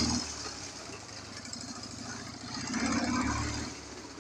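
Ural motorcycle's flat-twin engine running, swelling louder twice: briefly at the start and again about three seconds in.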